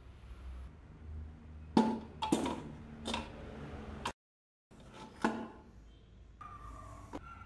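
A few sharp metallic knocks and clunks as a knobby go-kart wheel with a bolted steel hub is handled and worked onto a square steel axle, with a brief break in the sound just past four seconds.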